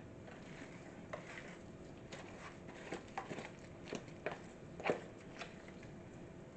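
Irregular light clicks and taps of a utensil against a mixing bowl, the loudest about five seconds in.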